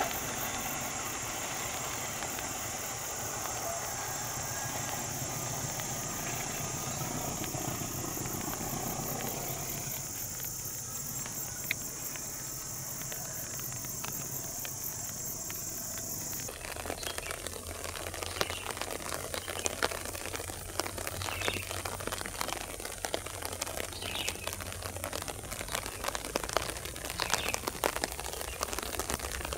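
Diesel locomotive of a departing passenger train running and fading into the distance, under a steady high buzz of insects. About halfway through the buzz stops abruptly and rain takes over: a patter of scattered drop ticks over a low steady hum.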